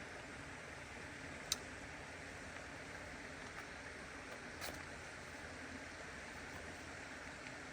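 Creek water running steadily, a continuous rushing hiss. A single sharp click about a second and a half in and a softer one near five seconds rise above it.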